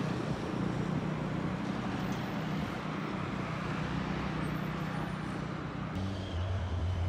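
City street traffic: a steady wash of road noise with a low engine hum, which drops to a deeper hum about six seconds in.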